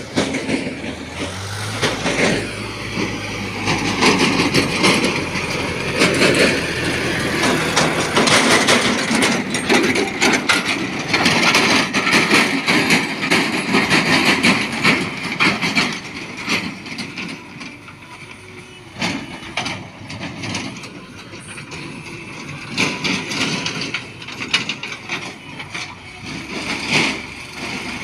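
Heavy diesel engines working: a tractor drives by close, loudest through the middle, then fades, while a JCB backhoe loader's engine runs. Rattling and clattering sound throughout.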